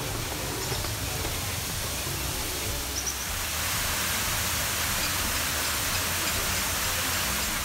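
Steady rushing of man-made waterfalls pouring over artificial rockwork, growing a little louder about three and a half seconds in.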